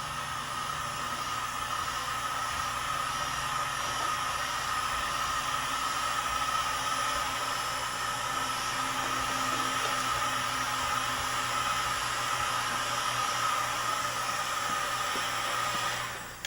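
Heat gun running steadily, blowing hot air with a steady whine in its hiss to preheat the roughened surface of a plastic radiator tank before epoxy goes on; it switches off near the end.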